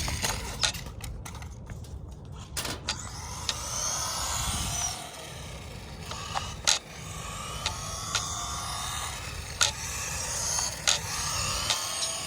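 Traxxas Mini E-Revo VXL radio-controlled truck driving on concrete, its brushless motor whining up and down in pitch with the throttle over tyre scrub. Sharp knocks come every second or two as the truck bumps and lands.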